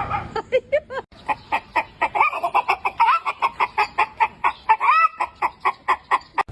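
Chicken clucking and cackling in a rapid run, about five clucks a second, with a few drawn-out squawks among them.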